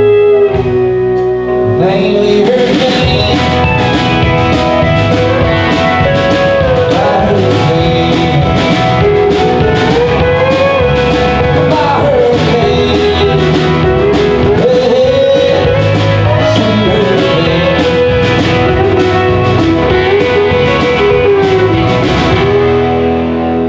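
Live rock band playing an instrumental passage: electric guitars and drums with a bending lead melody line over a steady beat.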